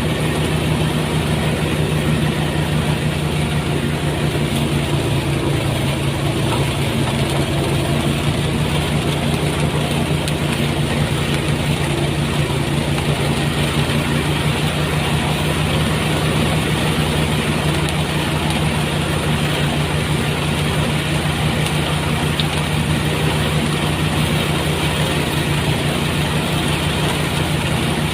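Motorized rice thresher running steadily, its engine droning at an even speed without changing.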